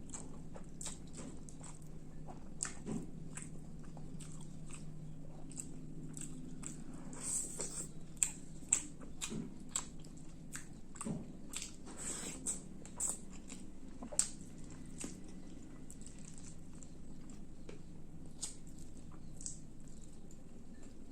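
Close-up sounds of a person eating fish roast with rice: irregular wet mouth clicks and smacks of chewing and biting, busiest in the middle, over a faint steady low hum.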